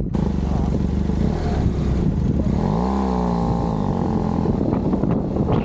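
BMW F800GS motorcycle's parallel-twin engine pulling away: running steadily, then revving up about halfway through and settling at a steady pitch.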